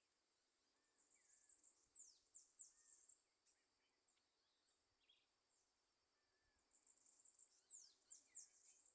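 Faint, high-pitched chirping of small birds: quick downward-sweeping notes in two bouts, one about a second in and another near the end.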